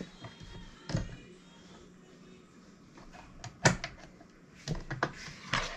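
A few scattered clicks and knocks from hands handling a small electric sewing machine and the fabric under its needle. The sharpest click comes about three and a half seconds in, and a few more follow close together near the end. No steady stitching run is heard.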